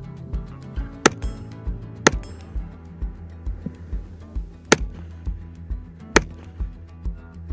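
Music with a steady low beat, with four loud, sharp cracks at uneven intervals over it.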